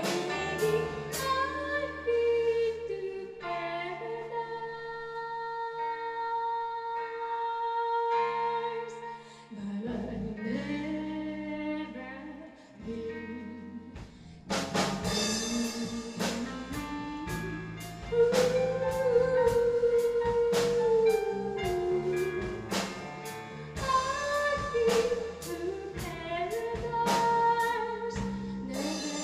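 Live rock band with a female lead singer, backed by keyboard, electric bass and guitar. The first half is a sparse passage with long held notes and few drum hits. About halfway through, the full drum kit comes in and the song picks up.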